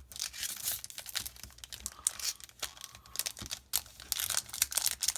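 Foil wrapper of a Pokémon booster pack crinkling and tearing as it is handled and opened, in irregular crackly bursts.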